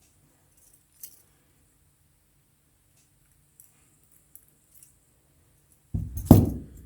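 A few faint metallic clicks from a lock pick and Euro cylinder lock being handled, then a louder knock and clatter about six seconds in.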